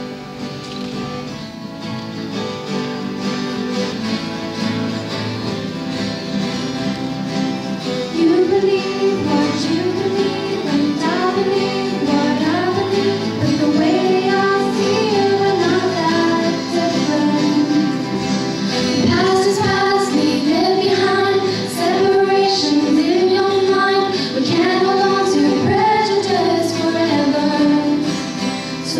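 Three acoustic guitars strumming the intro of a song; about eight seconds in, girls' voices come in singing the melody over the guitars through microphones.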